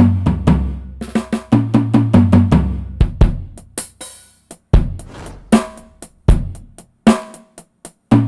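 Roland SPD-20 drum pad played with sticks, sounding the drum samples of its patch 12. There are quick fills across the toms, stepping down in pitch, then separate single hits of deep kick and snare sounds, each ringing out.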